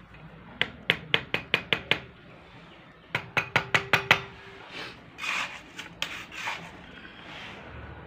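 A mason's steel trowel tapping in two quick runs of about seven sharp taps each, the second run leaving a short ring. Then the trowel scrapes through wet cement mortar.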